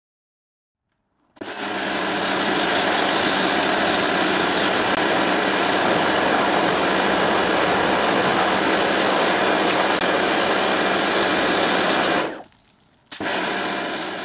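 Pressure washer running as it rinses a car: a steady spray hiss with a motor hum underneath. It starts suddenly after a second or so of silence, cuts out briefly near the end, and starts again.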